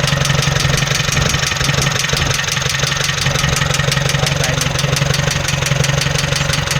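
Mitsubishi 4N15 2.4-litre diesel engine idling steadily with a rapid, regular knock: the knocking problem the engine is being checked for.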